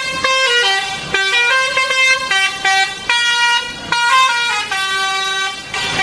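Indonesian bus 'telolet' musical horn playing a quick tune, the pitch jumping from note to note every fraction of a second, with a few brief breaks.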